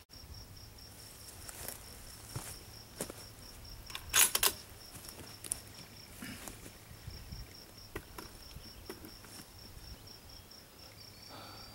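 Insects chirping: a steady high, evenly pulsing chirp through the quiet outdoor air, with a few faint clicks and a brief louder knock or rustle about four seconds in.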